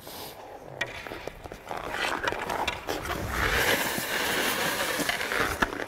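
Hockey skate blade carving rink ice on a deep inside edge: a hiss of blade on ice that builds over the first few seconds and is loudest about two-thirds of the way in, with a few light clicks and taps.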